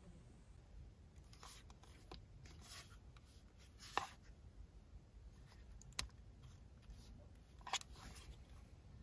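A small plastic mini projector being handled and turned over in the hands. There are faint rustles and three light, sharp clicks about four, six and eight seconds in, heard while the power button is being searched for.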